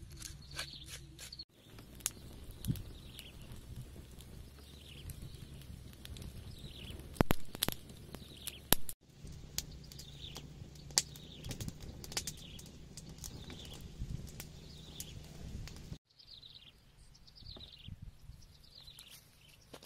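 Outdoor ambience with a small bird repeating a short falling chirp about once a second, over scattered light clicks. Two sharp knocks between about seven and nine seconds in are the loudest sounds.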